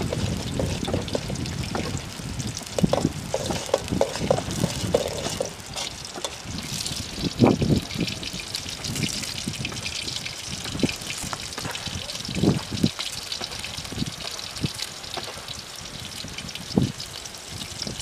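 Sliced onions, green chillies and curry leaves sizzling in hot oil in a large kadai, a steady crackling hiss. A metal slotted spoon stirs them, scraping and knocking against the pan now and then, with the loudest knocks about 7 s, 12 s and 17 s in.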